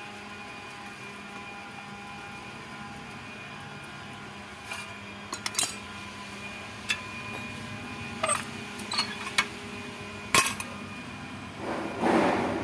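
Metal tools and parts clinking and knocking now and then during motorcycle repair work, over a steady mechanical hum, with one sharper knock about ten seconds in and a brief scraping rush near the end.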